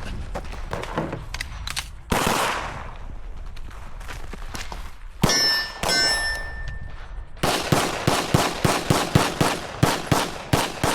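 9mm pistol shots on a timed drill, with steel targets ringing when hit about halfway through. In the second half comes a fast, even string of shots, about four a second.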